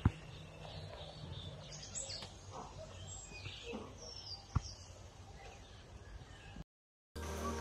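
Birds chirping in short gliding calls over a faint, steady low rumble of forest ambience, with one sharp click about halfway through. Near the end the sound cuts out and music starts.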